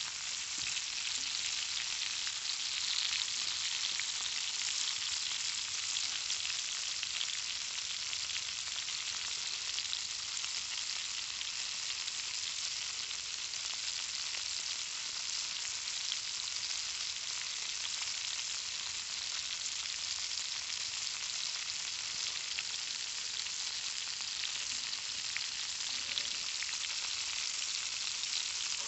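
Conecuh smoked sausages sizzling steadily in a cast iron skillet over a campfire, a dense hiss flecked with fine crackling.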